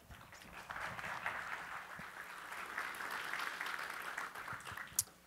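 Audience applauding. It swells about half a second in, holds steady, and dies away near the end, with one sharp click just before it stops.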